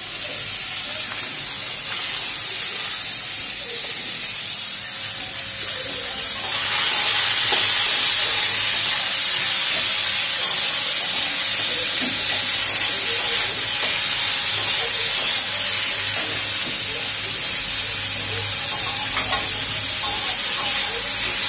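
Chopped vegetables sizzling in a hot aluminium wok, with a metal spatula clicking and scraping against the pan as they are stirred. The sizzle gets louder about six seconds in.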